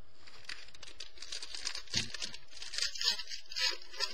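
Trading cards being handled and slid past one another: a series of short rustling and scraping sounds, with a soft thump about two seconds in.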